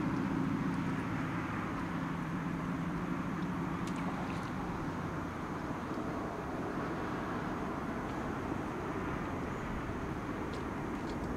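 Jet noise from an Airbus A350-1000's Rolls-Royce Trent XWB engines as the airliner climbs away after takeoff: a steady rumble that slowly fades as it recedes.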